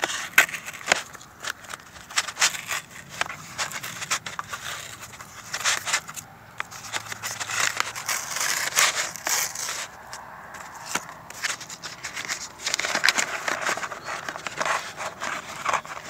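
A cardboard mailer being torn open by hand: bursts of tearing, scraping and crackling cardboard with sharp clicks.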